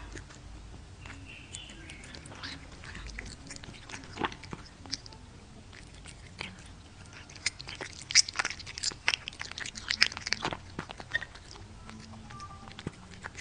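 A cat chewing and licking a strip of raw meat held on chopsticks: a string of irregular wet, clicky chewing sounds, coming thickest and loudest from about eight to ten seconds in.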